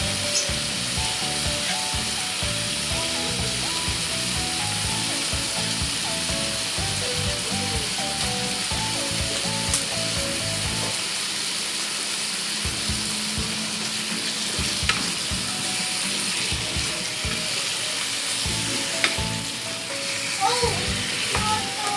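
Cubed potatoes sizzling steadily as they fry in oil in a wok. Near the end a spatula stirs them, adding a few scrapes and knocks against the pan.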